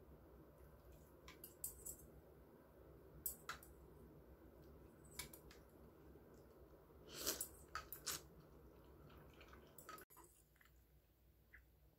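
Quiet mukbang eating sounds over cold buckwheat soba: soft clicks of chopsticks against a glass dipping cup and plate, with chewing and a short cluster of louder mouth and noodle noises a little past the middle.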